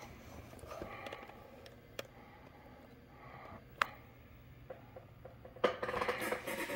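Quiet room with a faint low hum, two sharp single clicks, and a burst of rustling handling noise near the end.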